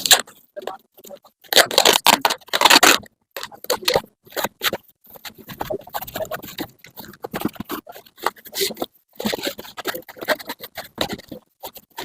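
Irregular scraping and rustling handling noises, loudest about two to three seconds in, then an uneven run of shorter scrapes.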